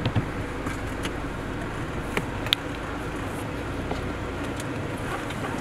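Force Gurkha's diesel engine running, heard as a steady low rumble inside the cabin, with a couple of sharp clicks about two seconds in.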